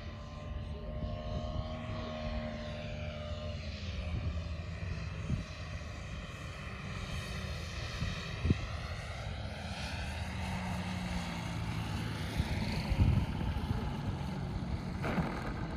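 DA-200 four-cylinder boxer gas engine of a 40%-scale Extra 330 LX model airplane, running at low throttle on its landing approach. Its propeller drone glides down and back up in pitch as the plane banks around and comes in low over the runway.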